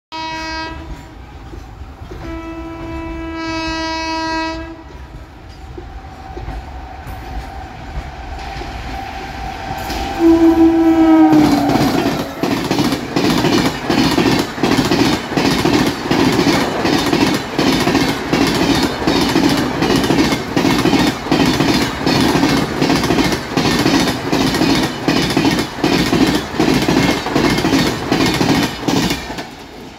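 WAP7 electric locomotive horn: a short blast, a long blast, then a third that drops in pitch as the locomotive passes at speed. Then the express's coaches run past at about 120 km/h, wheels beating a fast, steady clickety-clack over the rail joints.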